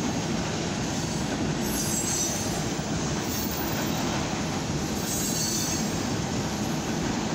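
Empty CWRX rail-rack flatcars of a CFE freight train rolling past at about 24 mph, a steady noise of steel wheels on the rails.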